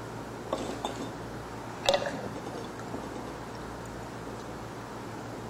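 A few short knocks and clicks, the loudest about two seconds in, over a steady low hum.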